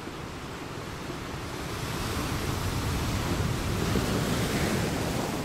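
Ocean ambience: a steady rush of sea and wind, with no distinct strikes or tones, swelling over the first couple of seconds and beginning to fade near the end.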